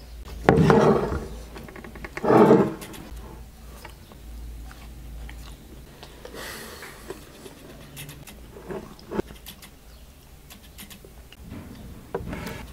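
A man's two loud, throaty groans with his mouth full of egg and bread, about half a second and two seconds in, then quieter chewing and a few small clicks.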